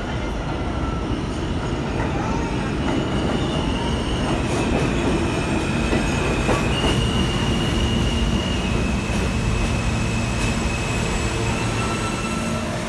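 R160A subway train pulling into the station and braking to a stop: a heavy steady rumble of wheels on the track, with high steady squeals from the wheels and brakes that shift in pitch a few times.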